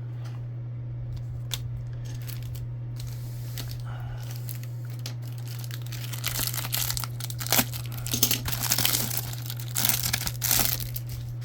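A trading-card pack wrapper being torn open and crinkled, mostly in the second half, with crackly tearing and sharp clicks over a steady low hum.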